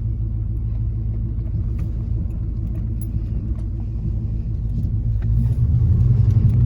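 LS V8 engine of a swapped pickup running on the road during a test drive, a steady deep rumble with road noise that grows louder about five seconds in.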